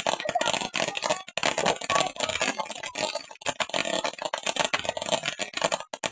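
Consumer firework crackling and hissing: a dense, rapid stream of sharp pops and sputters that keeps up without a break.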